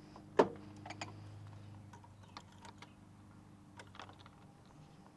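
A sharp click about half a second in, then several lighter clicks and taps spread through the rest, over a faint low hum.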